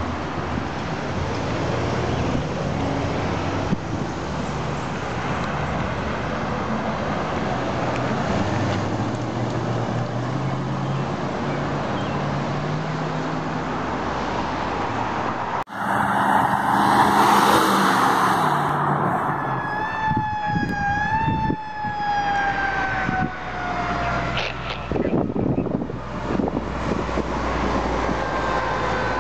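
Fire apparatus going by on a road, with engine and tyre noise. Near the middle a loud rush, then a siren wails and slides slowly down in pitch through the last third.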